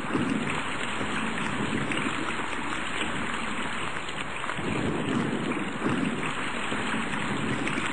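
Storm-at-sea sound effects: steady heavy rain hiss with low rushing surges of wind and waves, one near the start and another about five seconds in.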